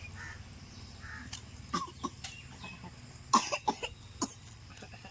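A person coughing: two short coughs about two seconds in, then a quick burst of several coughs about three and a half seconds in, over a steady low hum.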